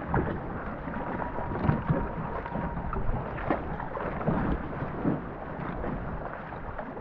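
Racing canoe under way: paddle strokes splashing about once a second over a steady rush of water and wind on the microphone.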